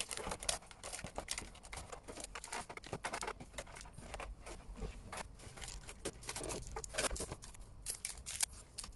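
Foil Pokémon TCG booster packs and their box packaging being handled, crinkling and rustling in quick irregular bursts as the packs are taken out and laid down.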